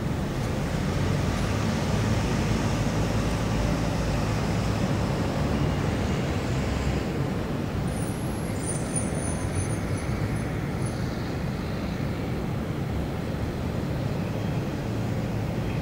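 City traffic ambience: a steady low rumble of road vehicles, with no single event standing out. About halfway through, some faint high-pitched tones sound briefly.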